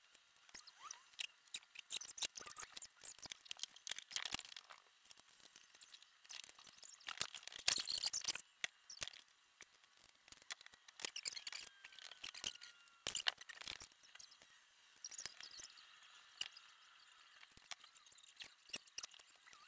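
Scattered metallic clicks and clinks of hand tools and bolts during mini BMX bike assembly, with a denser run of rattling clicks about eight seconds in. A faint, falling squeak is heard about twelve seconds in.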